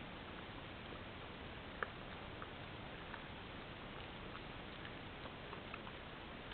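Steady hiss of a trail camera's microphone with scattered faint ticks, and one sharper click a little under two seconds in.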